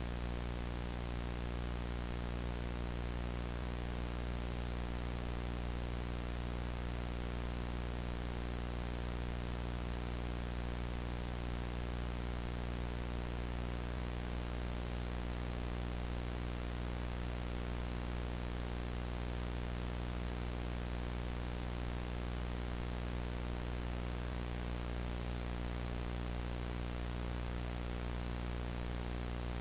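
VHS static: steady analog tape hiss with a low electrical hum underneath, unchanging throughout.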